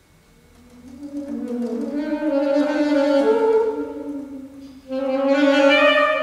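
Solo saxophone playing a slow phrase of contemporary concert music. A soft note swells in from near quiet and fades away, then a louder note starts abruptly about five seconds in.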